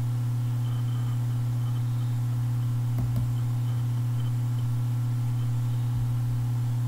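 A steady low hum, with a faint click or two about three seconds in.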